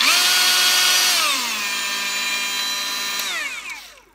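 Haimerdinger LB168 18 V brushless cordless angle grinder running without load. It speeds up with a rising whine at the start, drops to its lower speed setting about a second and a half in, then is switched off and winds down to a stop near the end. The owner judges it short on revs.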